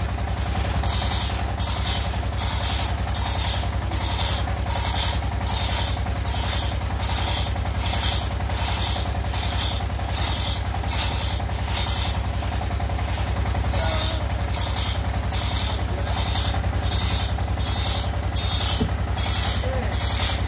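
Two-man hand saw ripping a teak log lengthwise, each push and pull rasping through the wood at a steady pace of about two strokes a second, with a short lull about twelve seconds in. A steady low hum runs underneath.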